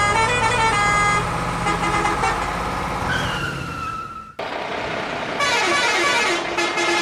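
A tune of quick stepped high-pitched notes with a falling glide near its end. It cuts off suddenly about four seconds in, and after a short gap a second rhythmic jingle starts.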